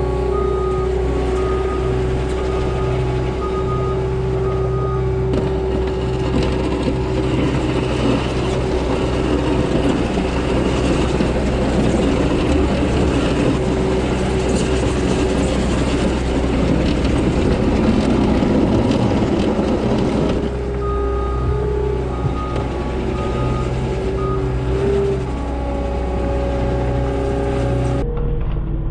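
Diesel engine of a Caterpillar track skid steer running steadily under work, with its backup alarm beeping at the start and again in the last third as it reverses. The machine noise grows louder through the middle stretch.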